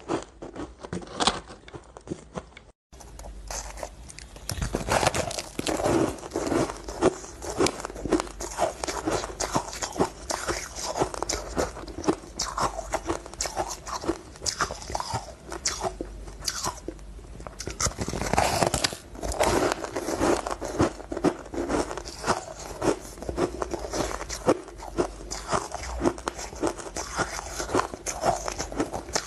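Close-up crunching of powdery frozen ice being bitten into and chewed: a dense, uneven run of crisp crunches and crackles, broken by a short gap about three seconds in.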